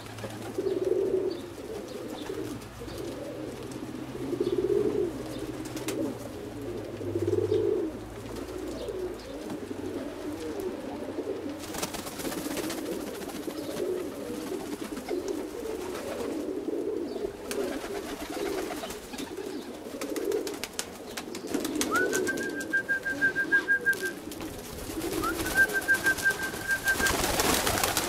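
Domestic pigeons cooing continuously, several birds overlapping in low warbling coos, as courting birds do. Near the end come two short, steady high whistles.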